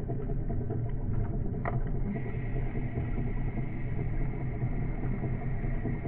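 Underwater ambience: a steady low rumble, with a brief chirp about one and a half seconds in and a faint steady whine from about two seconds in.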